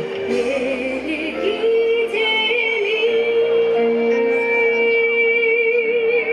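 Concert music played over a stage sound system: a woman singing long held notes with vibrato over the backing music.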